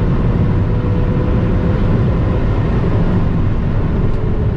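Ferrari 488's twin-turbo V8 and road noise, a steady loud rumble while the car is driven, with no revving or gear changes.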